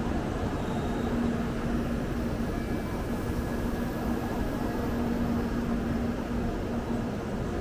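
Shinkansen bullet train rolling slowly along a station platform: a steady rumble and hiss with a steady low hum.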